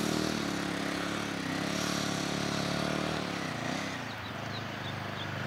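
KTM 500 EXC-F single-cylinder four-stroke dirt bike engine running under throttle. The revs rise about a second and a half in, and the sound fades after about four seconds.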